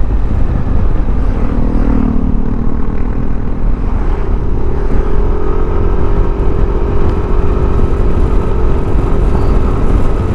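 Yamaha NMAX 155 scooter's single-cylinder engine running at road speed under heavy wind rumble on the microphone; its note settles into a steady drone about four seconds in.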